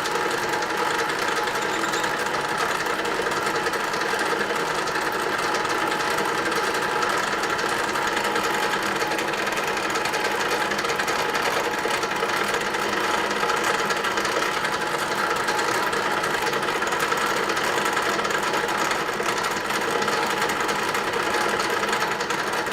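Center lathe running steadily while turning a workpiece: an even, unbroken mechanical hum with several steady tones from its motor and gearing.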